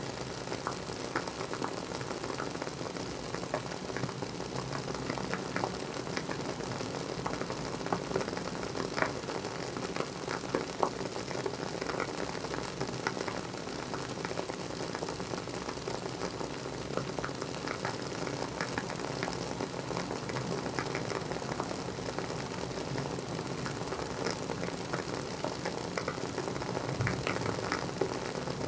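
WoodWick candle's wooden wick burning with a continuous soft crackle: dense small ticks and pops, with a few louder snaps scattered through it.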